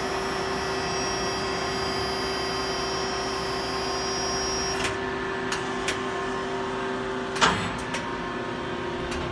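Brother TC-S2A CNC drill-tap center running with a steady, high-pitched whine that cuts off about five seconds in. A few sharp clicks follow, with a louder knock about seven and a half seconds in.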